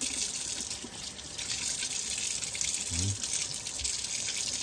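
Tap water running steadily into a kitchen sink as an air fryer's grill rack is rinsed clean under it.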